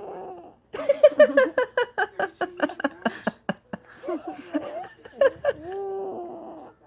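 A run of quick, breathy laughter, about four pulses a second, starts about a second in. Then a three-month-old baby coos, in sounds that bend up and down and end in one long, steady coo.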